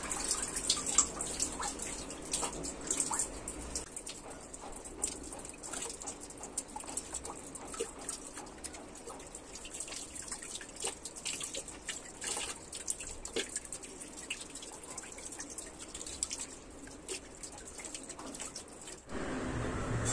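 Water running from a wall tap onto a child's hands, splashing and dripping as the hands are rubbed under the stream. About a second before the end it cuts to a steady low hum.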